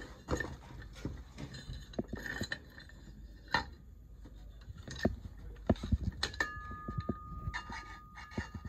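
Scattered clicks, knocks and rattles of a brushless servo motor's housing and its aluminium mounting bracket being handled and wiggled together by hand. A thin steady tone joins about six seconds in.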